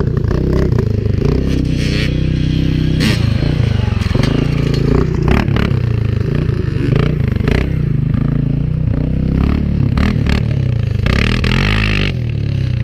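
Quad bike (ATV) engine running and revving up and down as it rides over rough grass. Frequent short crackles run over it.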